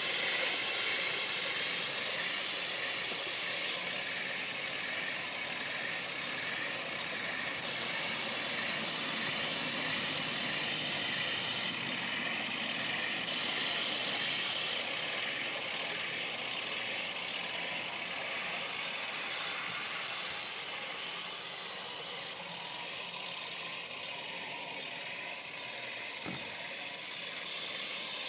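Full-metal radio-controlled Tiger tank model driving across grass: a steady mechanical running sound from its drive and tracks, growing a little fainter in the last third as it moves off.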